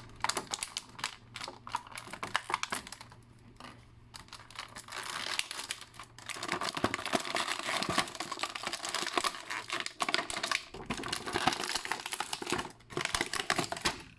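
Plastic action-figure packaging crinkling and crackling as it is handled, with a busy run of sharp crackles and rustles as the figure and its accessories are taken out of the tray.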